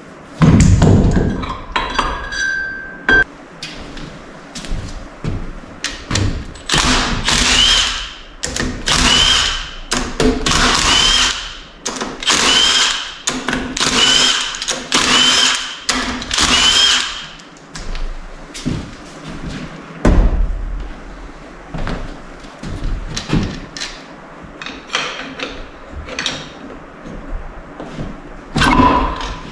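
A power tool runs in seven short bursts of about a second each, as when spinning bolts out of a transmission case. Sharp metal clanks and knocks come before and after the bursts, the loudest one just after the start.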